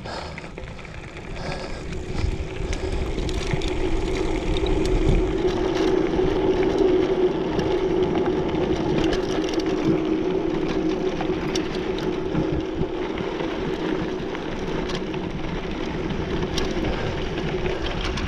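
Mountain bike rolling downhill on a dry dirt trail: knobby tyres running over dirt and loose stones with scattered clicks and rattles, wind noise on the microphone, and a steady hum. The sound grows louder over the first several seconds as the bike picks up speed, then holds.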